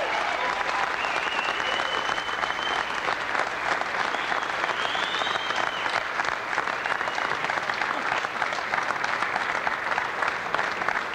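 Audience applauding: dense, continuous clapping that holds steady, with a few faint voices mixed in.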